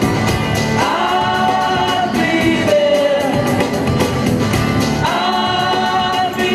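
Live pop-rock song: a large group singing together in long held phrases over acoustic guitars and a drum kit keeping a steady beat.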